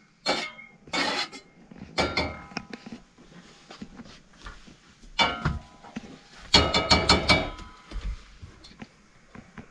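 Metal spoon clinking and scraping in a small steel pot, with mugs and utensils clattering on a metal hob and counter in several short bursts; the longest is a rattle of ringing clinks about two-thirds through.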